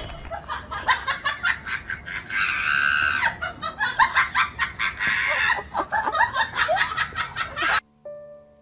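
A person laughing in quick, repeated bursts, with a stronger stretch about two and a half seconds in. It cuts off suddenly near the end.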